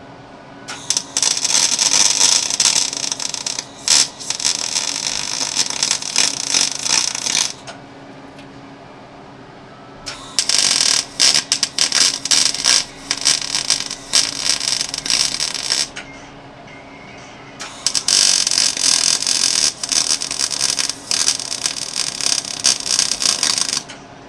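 An electric welder crackles and spits in three runs of about six seconds each, with short quiet gaps between them. It is welding new bolts, used as studs, onto the catalytic converter's heat-shield tabs.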